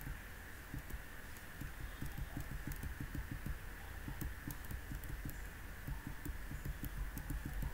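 Computer keyboard keys tapped in a rapid, uneven series of light clicks, over a low steady hum.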